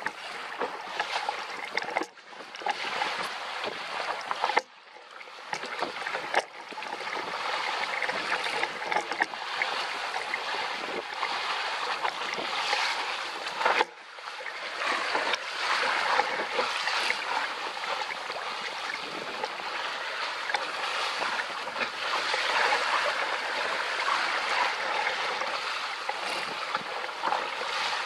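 Water rushing and splashing along the hull of a JY15 sailing dinghy moving under sail, a steady hiss that dips briefly a few times.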